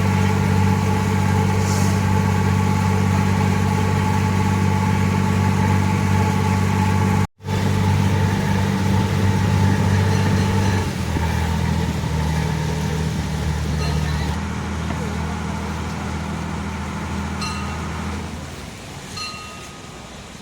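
Passenger boat's engine running steadily under way, heard on board. About eleven seconds in it drops to a lower note, and near the end it eases off and fades as the boat slows.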